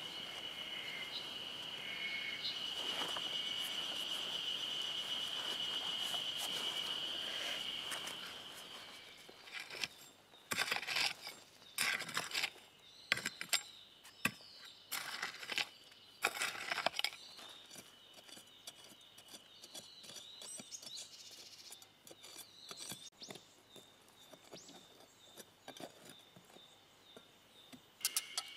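A steady high insect trill, then from about ten seconds in a mattock chopping into soil and pine roots around a stump: a quick run of sharp strikes for several seconds, followed by fewer, quieter knocks.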